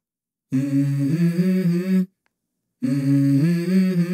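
A short hummed tune in a low voice, heard twice with silence between: each phrase lasts about a second and a half and steps upward in pitch.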